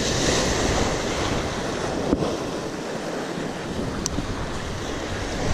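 Sea waves breaking and washing over a seaweed-covered rock ledge, with wind on the microphone. The surge is loudest at first and eases off as the water drains back.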